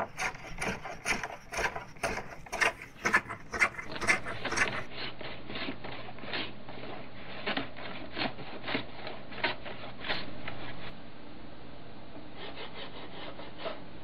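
Quick repeated strokes of hand tools shaving and smoothing the top edge of a laminated wooden kayak coaming, about three strokes a second. The strokes are louder for the first five seconds or so, then fainter and more spaced, with a short faint run of strokes near the end.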